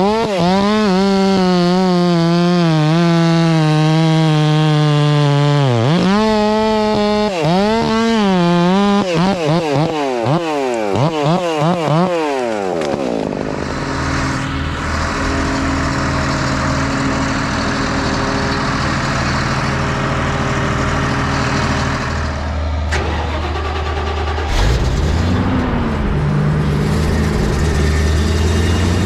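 Two-stroke chainsaw running at full throttle with its pitch wavering under cutting load, then revved in short bursts and winding down to a stop about twelve seconds in. After that a heavy diesel machine runs steadily with a low drone.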